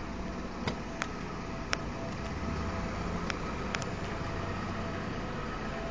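Street ambience: a steady low hum of road traffic, with a few sharp clicks scattered through the first four seconds.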